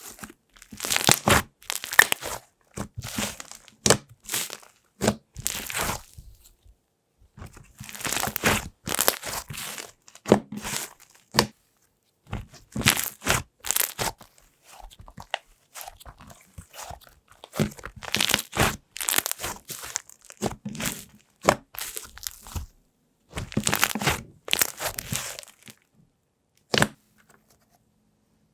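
Slime being squished, pressed and stretched by hand, giving crackling, sticky popping in clusters a second or two long with short pauses between.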